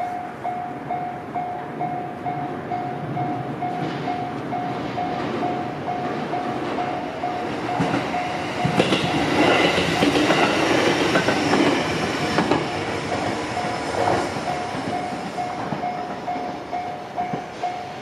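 Japanese level-crossing warning bell dinging steadily, about two strikes a second, while a JR Central electric train passes, its wheels clattering over the rail joints and loudest around the middle. The bell stops at the very end as the crossing clears.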